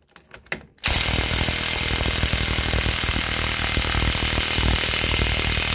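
Impact wrench hammering steadily for about five seconds as it undoes an ATV front hub nut torqued to about 196 N·m, then stopping abruptly. A few light clicks of the socket being fitted onto the nut come just before it starts.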